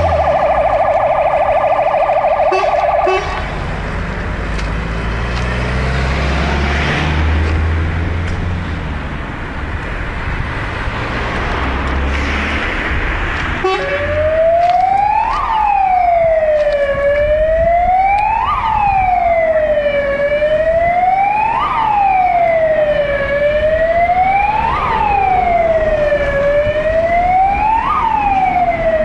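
An emergency vehicle siren in a fast warble cuts off about three seconds in, leaving a heavy diesel engine running low. About fourteen seconds in a siren starts a slow wail, rising and falling about every three seconds.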